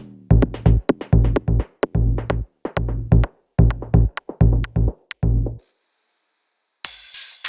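Electronic music with a heavy drum-machine beat, which cuts off about five and a half seconds in. After a second of silence, a burst of hissing noise begins near the end.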